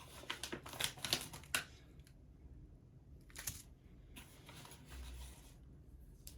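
Hands handling small items and packaging: a quick run of small clicks and rustles in the first second and a half, then a single rustle about three and a half seconds in and a soft low thump around five seconds.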